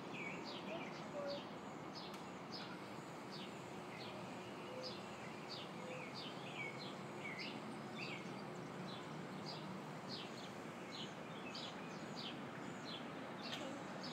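Songbirds chirping over and over, short high downward-sliding chirps about twice a second, over steady background noise.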